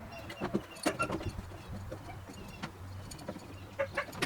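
Scattered light metal clicks and clinks of hand tools and hardware as a bolt is worked out of a window bracket inside a truck door, over a low steady hum.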